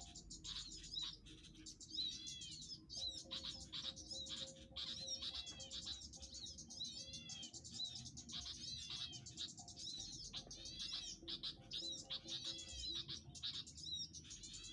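Small birds chirping in repeated high, arched notes, bursts coming about once a second, over background music with steady held tones.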